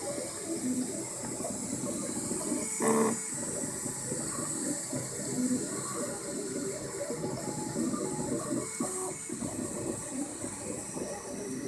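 Ultimaker 2 3D printer running: its cooling fans give a steady hiss while the print head's stepper motors move it in short pitched whirs and chirps, with one louder short tone about three seconds in.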